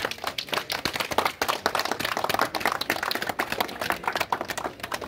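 A small group of people applauding, many quick hand claps.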